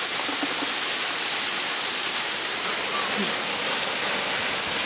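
Waterfall rushing close by: a steady, even roar of falling water.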